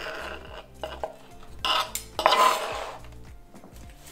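A knife and fork cutting crispy breaded chicken strips on a plastic cutting board: taps and scrapes of the metal on the board, with a louder rustling stretch about two seconds in.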